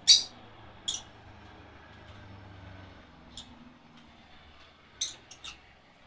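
Budgerigars giving short, high-pitched chirps: a loud one at the start, another about a second in, a faint one in the middle, and a quick run of three near the end.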